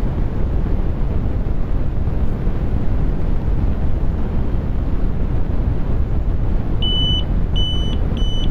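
Electronic refrigerant leak detector sounding its alarm: a high beep that starts about seven seconds in and repeats roughly twice a second, quickening slightly, as its probe sits at an air-conditioner service-valve flare nut. This signals refrigerant leaking at that joint. Underneath is a steady low rushing noise.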